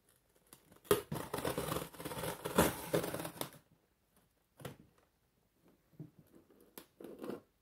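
Scissors blade drawn along the taped seam of a cardboard box, slitting the packing tape in one continuous cut of about two and a half seconds. A few shorter, quieter sounds of the box being handled follow.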